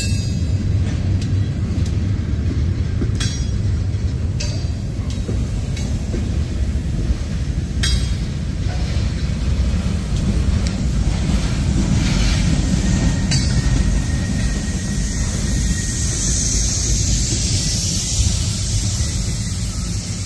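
Freight cars (tank cars and covered hoppers) rolling past close by: a steady rumble of steel wheels on rail with a few sharp clanks scattered through, and a hiss that swells in the last few seconds.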